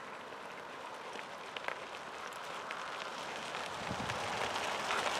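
Bicycle tyres crunching over a gravel road, a steady gritty noise growing louder as the bike approaches, with a few light clicks.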